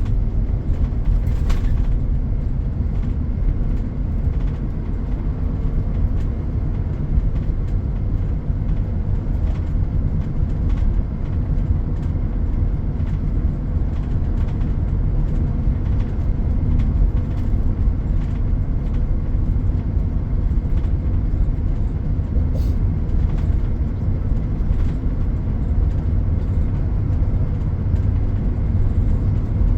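Steady low rumble of heavy road traffic, with a faint constant hum above it.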